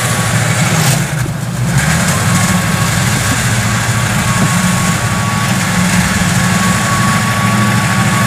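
Small tracked farm tractor's engine running steadily as the crawler drives across soft, muddy ground. A thin, steady high whine joins the engine after about two seconds.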